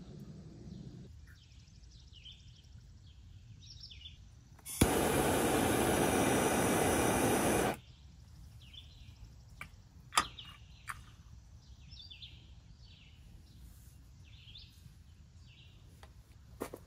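Hand-held propane torch clicking alight and hissing steadily for about three seconds, then shut off. Birds chirp throughout, and a single sharp click comes a couple of seconds after the hiss stops.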